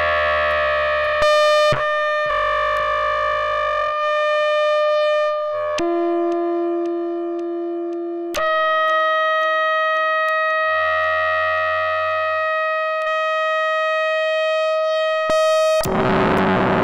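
Korg MS-20 analog synthesizer playing a self-generating patch through delay and reverb: held buzzy tones that jump to a new pitch every second or few seconds, each change marked by a click. A low tone joins for a couple of seconds in the middle, and a burst of noise takes over near the end.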